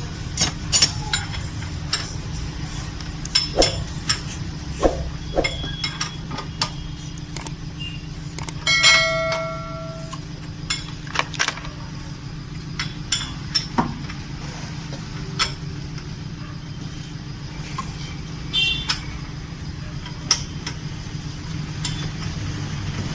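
Irregular sharp metal clicks and knocks as a Hyundai i20 Kappa CVVT petrol engine is turned over by hand with a wrench on the crankshaft bolt, a check after setting the timing chain that no valve strikes. About nine seconds in, a piece of metal rings out for about a second. A steady low hum runs underneath.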